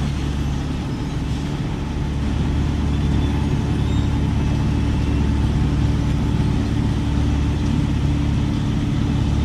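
Wirtgen W 100 F cold milling machine's diesel engine running steadily with a low drone, getting a little louder about two seconds in.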